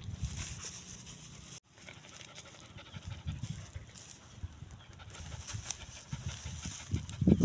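A dog chewing food close to the microphone, then, after a cut, a dog panting with soft, repeated breaths that grow louder toward the end.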